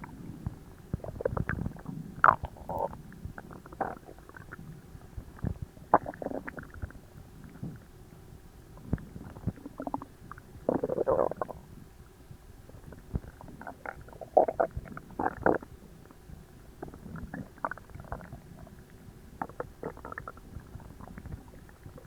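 Human stomach and intestines gurgling and rumbling while digesting a very large meal: irregular short gurgles come and go, with a longer gurgle about eleven seconds in.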